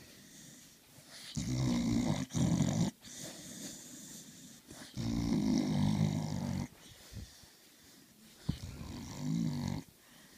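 A dog making three drawn-out, rough, pitched noises, each lasting one to two seconds, with short gaps between.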